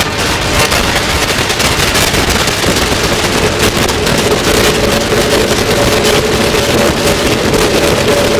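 Modular synthesizer patch running through delay, giving a loud, dense noisy texture with fine crackle; a steady mid-pitched drone joins about halfway through.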